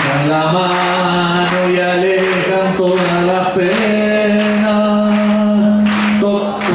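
A man singing unaccompanied in a slow, chant-like line, stepping between held notes. He holds one long, steady note for about two seconds past the middle.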